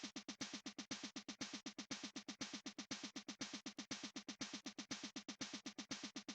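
Electronic background music: a fast, even synthesized pulse of about eight beats a second.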